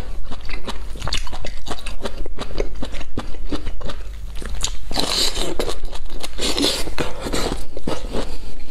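Chewing and biting of bamboo shoots: a continuous run of short crunching clicks, with louder crunches about five seconds in and again about a second and a half later.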